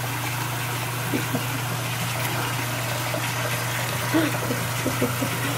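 Bathroom sink faucet running in a steady stream into the basin, with a few faint slurps of someone drinking from the stream from about four seconds in.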